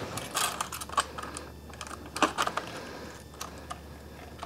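Scattered light metallic clicks and taps as metal hose clamps are handled and fitted around a 7.3 Powerstroke's up pipe, busier in the first half.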